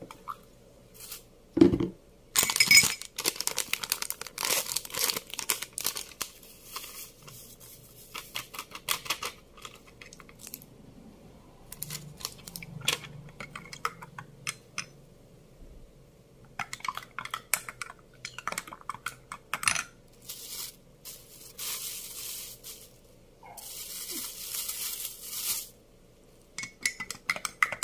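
A spoon clinking against a drinking glass as a drink is stirred, among crinkling and tearing of plastic packaging and a rustling plastic bag. The sound is a run of short clinks and crackles, with a quick, even run of clinks a few seconds in and longer rustling near the end.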